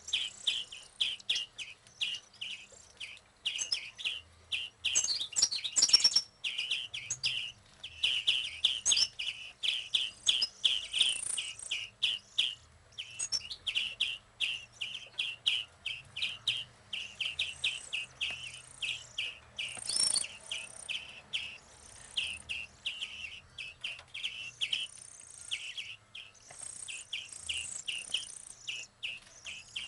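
A hand-raised bird chirping over and over in a steady run of short, high chirps, about three a second, with a few higher notes mixed in.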